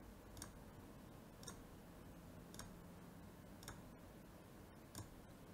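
Faint computer mouse clicks, about five of them roughly a second apart, over near silence.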